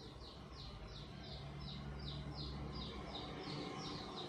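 A bird chirping faintly and steadily, short high notes each falling in pitch, about three a second, over a low steady hum.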